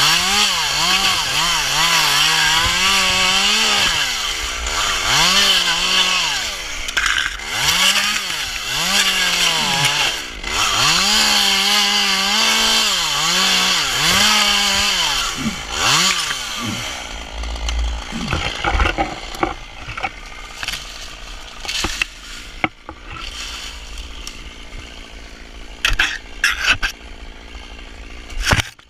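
Small two-stroke top-handle chainsaw cutting through dead palm fronds, its engine pitch rising and falling with each cut for about the first sixteen seconds before the saw goes quiet. After that, dry palm fronds crackle and rustle with scattered snaps as they are handled.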